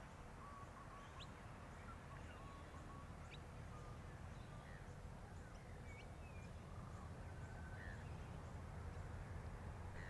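Faint, scattered short chirps and whistles of birds calling, over a steady low rumble of outdoor ambience.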